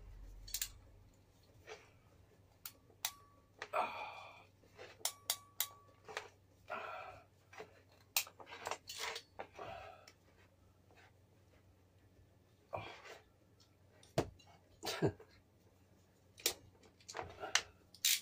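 Irregular sharp clicks and taps with a few short rustling scrapes, from hand tools working on heavy battery cable and its crimp lugs.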